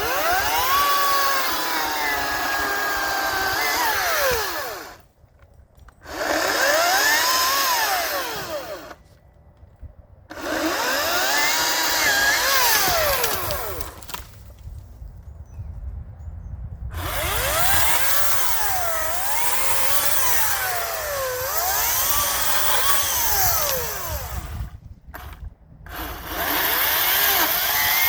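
Hart chainsaw cutting mesquite in five bursts, stopping between them. Its whining pitch sags and recovers as the chain bites into the wood and is eased off.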